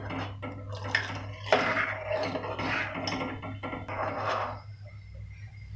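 A steel spoon stirring thin tomato saar in a metal pot, scraping and clinking against the pot, stopping about four and a half seconds in. A steady low hum runs underneath.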